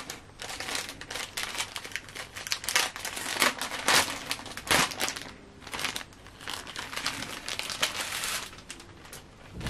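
Wrapping on a new kerosene heater wick crinkling as the wick is handled and unwrapped: a continuous run of irregular crackles and rustles.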